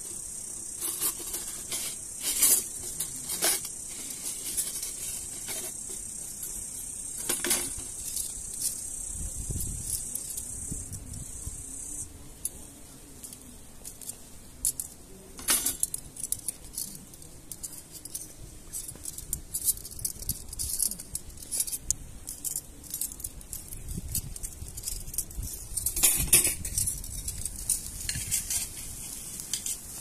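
Metal dishes and cooking utensils being handled, with scattered clinks and knocks, over a steady high insect buzz that is strongest in the first half.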